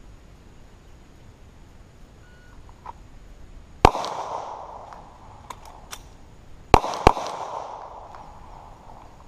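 Three 9mm pistol shots with Winchester steel-cased 115-grain ammunition: one about four seconds in, then two in quick succession about three seconds later, each followed by an echoing tail. A few fainter sharp clicks come between the shots.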